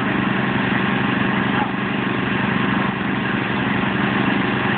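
Ride-on lawn mower tractor engines running steadily as the two tractors pull against each other in a tug of war, with brief small dips in level about a second and a half and three seconds in.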